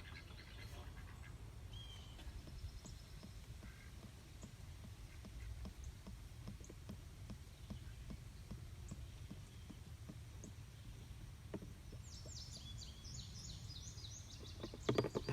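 Motor oil glugging faintly from a one-quart bottle into the engine's oil filler, over a steady low background rumble.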